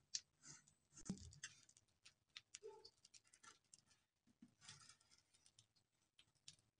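Faint crinkling and rustling of a polythene piping bag being squeezed as whipped cream is piped onto a cake, with a few soft ticks.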